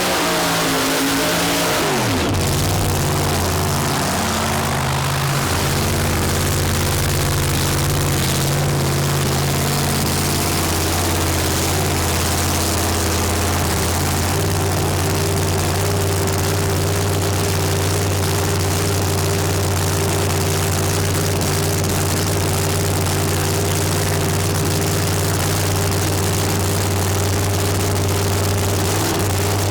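An engine running at a steady, even speed with a low drone, after a sharp drop in pitch in the first two seconds.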